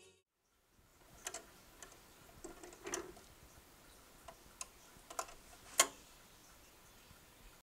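Soft hiss with a scattered series of sharp clicks and ticks, the loudest about six seconds in, as a record player's tonearm lifts at the end of the side and auto-returns to its rest.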